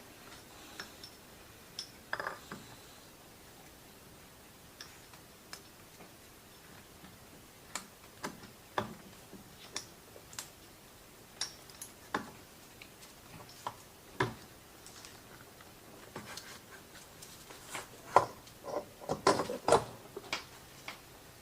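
Scattered light metallic clicks and taps of small motorcycle engine parts being handled and fitted, with a quicker run of clicks near the end.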